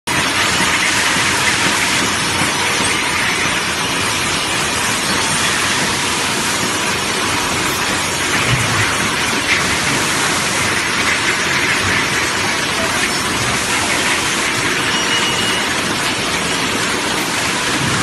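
Steady hissing din of bottle filling and labelling machinery running on a syrup bottle packaging line, with a couple of light clicks about halfway through.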